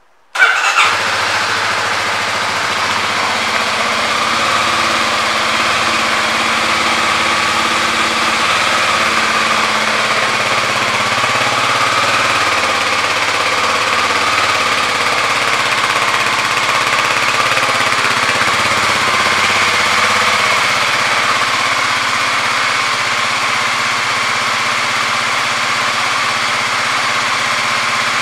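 2019 Kawasaki KLX250's single-cylinder four-stroke engine starting, with a short flare just under a second in, then idling steadily.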